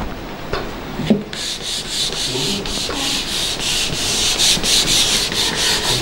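A board eraser wiping marker writing off a whiteboard, scrubbing back and forth in quick strokes, about four a second, from a little over a second in. A couple of light knocks come just before.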